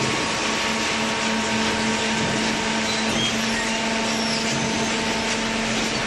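Hydraulic baler running: a steady mechanical hum with a constant low tone under a dense machine noise.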